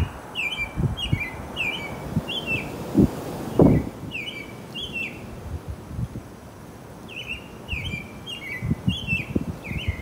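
Female northern cardinal singing: three runs of repeated, falling whistled notes, about two a second, with a pause between runs. Strong wind gusts on the microphone, loudest about three seconds in.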